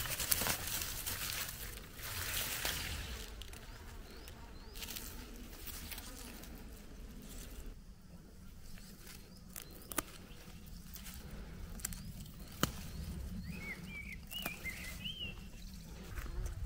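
Insects buzzing steadily in the open air. A few short chirps come near the end, and there are a couple of sharp clicks.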